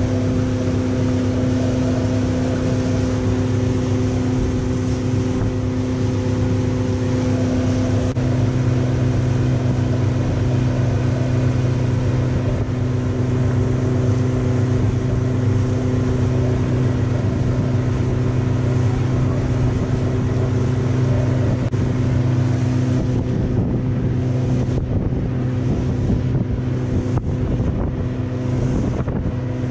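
Motorboat engine running steadily under way, its pitch stepping up slightly about eight seconds in as it picks up speed, over a steady rush of water and wind.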